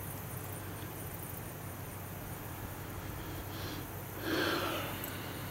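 Faint steady outdoor background with a low hum. About four seconds in comes a short sniff and breath out close to the microphone.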